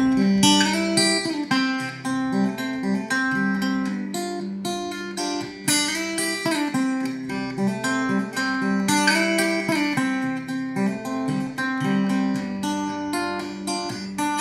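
Epiphone Masterbilt Century archtop guitar picked in a riff of single notes and chords, played with a real light tone.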